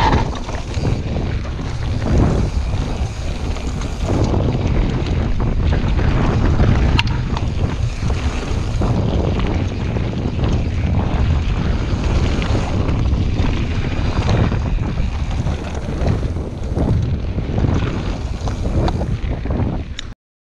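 Wind buffeting a chest-mounted GoPro Hero 5 Black's microphone as a mountain bike is ridden fast down a dirt trail, with a low rumble and short knocks from the tyres and bike over the rough ground. The sound cuts off suddenly near the end.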